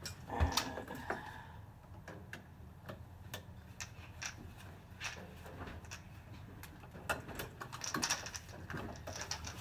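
Screwdriver working the screws out of a wall switch or outlet: irregular small metallic clicks and ticks, with one firmer knock about half a second in.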